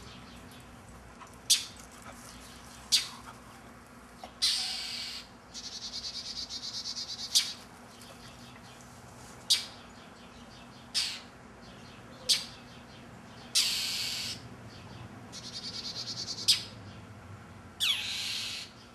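Northern mockingbird scolding a stalking cat: sharp, loud, harsh calls repeated about every one and a half seconds, twice broken by a longer raspy, rapidly pulsing call, an alarm and mobbing display at a predator.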